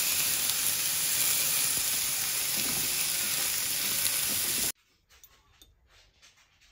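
Pieces of chicken breast sizzling steadily in a frying pan as they are turned with chopsticks; the sizzle cuts off abruptly nearly five seconds in.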